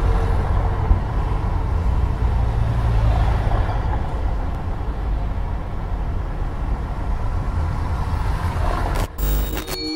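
City traffic noise: a steady rumble of road vehicles. It drops away briefly about nine seconds in.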